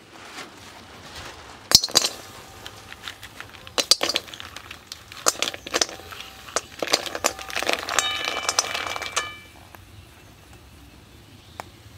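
Mussel shells clattering into an empty aluminium karai, dropped by the handful and then tipped in from a woven bamboo basket, the hard shells clicking against each other and the metal. The pan rings briefly toward the end of the pouring, about eight seconds in.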